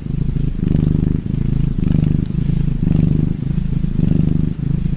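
Cougar purring close to the microphone: a low rumble that swells and breaks about twice a second as it breathes in and out.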